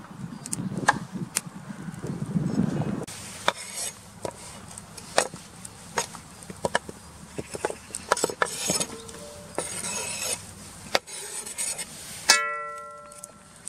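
Kitchen knife clicking and scraping on a wooden cutting board as chopped carrot and red pepper are pushed off into a cast-iron pot, a string of sharp clicks and short scrapes. Near the end a single sharp strike rings out and fades over about a second.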